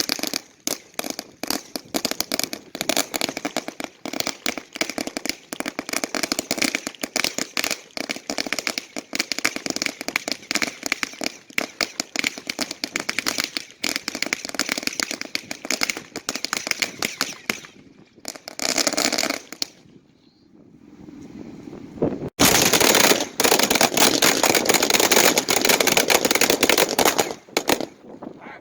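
Strings of firecrackers going off in rapid, dense cracks. After a short lull, a second, louder string starts suddenly about two-thirds of the way through.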